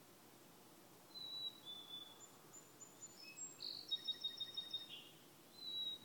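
Black-capped chickadee singing its whistled two-note fee-bee song, a clear high note dropping to a slightly lower one, about a second in and again near the end. In between, a quicker jumble of higher, shorter bird notes with a fast trill.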